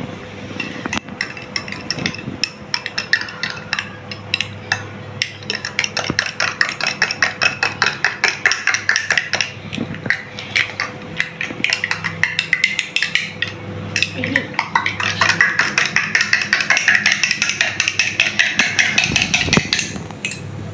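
Metal spoon stirring powder into a glass of water, clinking rapidly against the glass, several clinks a second, with a short pause a little past the middle.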